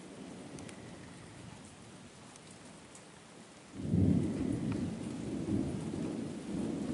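Steady rain falling, then about four seconds in a sudden loud crack of thunder breaks into a low rumble that rolls on, swelling and fading.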